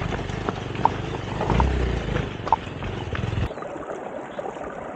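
Motorcycle engine running at low speed over a rough stone track, with knocks and rattles as the bike rides over loose rocks. About three and a half seconds in, it cuts to a small stream trickling over stones.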